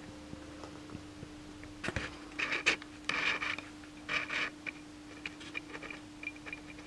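A hand tool scraping wood in about four short strokes, followed by a few light ticks, over a steady low hum.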